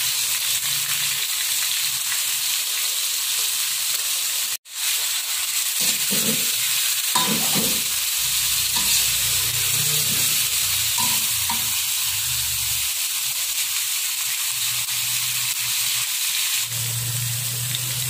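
Pork, shrimp and squid sizzling steadily in hot oil in a wok as they are stir-fried with a metal ladle. The sound cuts out for an instant about four and a half seconds in.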